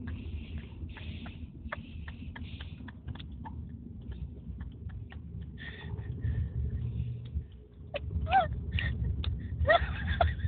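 Toddler fake-snoring: short, breathy snorting puffs and clicks, then two short high vocal squeaks with sliding pitch near the end.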